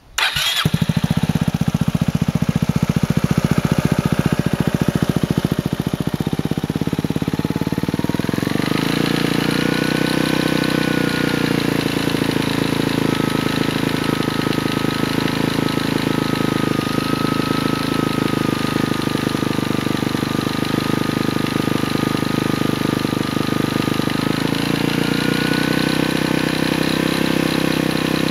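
Yamaha Grand Majesty 250 scooter engine starting and then idling, carrying an abnormal noise that the owner traces to the cylinder but cannot identify. The running note changes about eight seconds in, and a thin high whine sits over the engine for much of the time after that.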